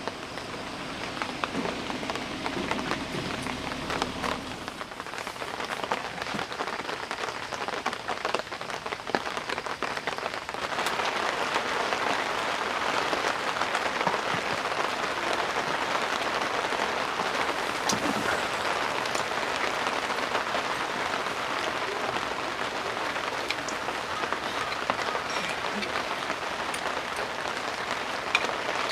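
Heavy rain falling steadily, with scattered drops ticking among the hiss; it grows louder about ten seconds in.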